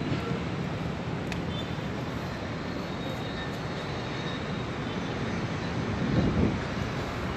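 Steady outdoor city background rumble, even and without any clear tone, with a faint click about a second in.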